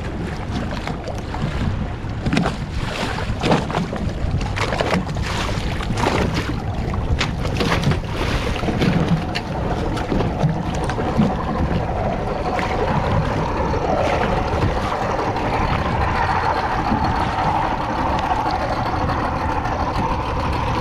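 Water lapping and slapping against the hull of a fishing kayak, with frequent short knocks and splashes over a steady rush of wind and sea.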